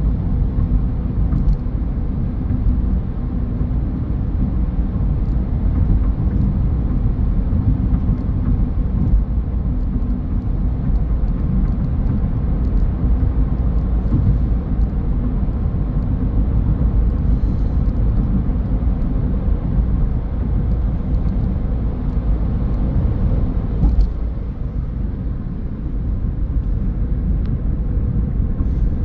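Car driving along a road: a steady low rumble of tyre and engine noise, dipping slightly for a moment near the end.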